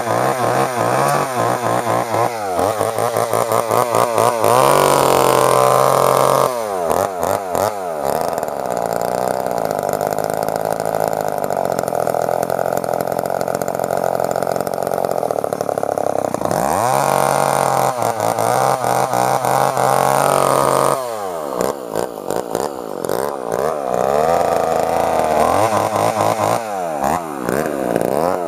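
Montgomery Ward chainsaw with a 10-inch guide bar, its small two-stroke engine running and being revved up and down over and over, held at high revs for several seconds at a time in the middle, with quick blips of the throttle near the end.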